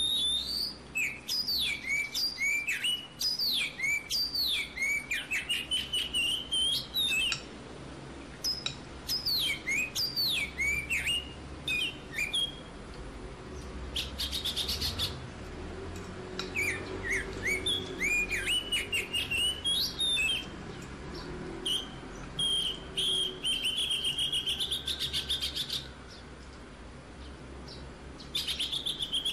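Small birds chirping and trilling in quick runs of high, falling chirps and buzzy trills that stop and start throughout, with a short pause near the end.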